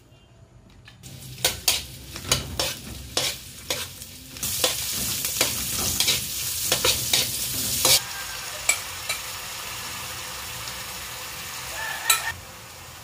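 Chopped onion and garlic sizzling in hot oil in a wok, with a spatula repeatedly knocking and scraping against the pan as they are stirred. The sizzle is loudest in the middle, then turns steadier and quieter, broken by a few more spatula knocks.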